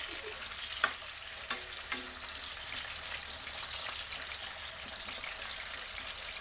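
Cubed potatoes sizzling steadily as they fry in hot oil in a wok, with three sharp clicks of the spatula against the wok between about one and two seconds in as they are stirred.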